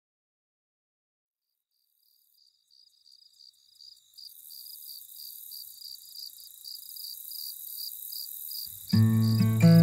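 Silence, then cricket-like chirping fading in: a rapid, evenly spaced high chirp over a faint hiss. About nine seconds in, acoustic guitar strumming begins over it as a song starts.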